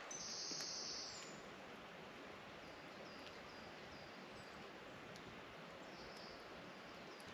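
Quiet woodland ambience with a faint steady hiss and small birds calling: a rough high call lasting about a second at the start, then a run of short, high chirps about three seconds in and a few more near the end.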